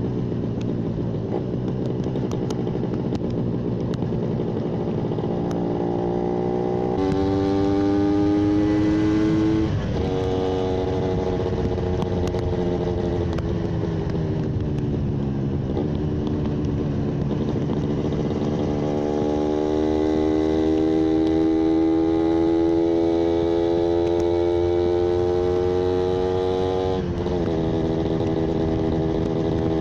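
Yamaha 125ZR's single-cylinder two-stroke engine running under way. Its revs climb after about seven seconds, break briefly like a gear change, then ease down. They climb slowly again through the second half and break once more near the end.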